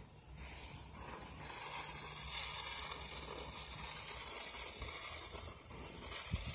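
Small ground-spinner firework hissing steadily as it burns, with no bang or pop.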